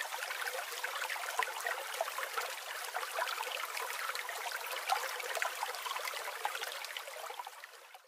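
Water trickling: a steady hiss dotted with many small clicks, fading out near the end.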